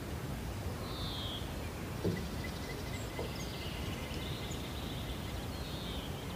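Outdoor ambience: birds chirping now and then over a steady low rumble. About two seconds in comes a light knock, a mug being set down on a wooden deck railing.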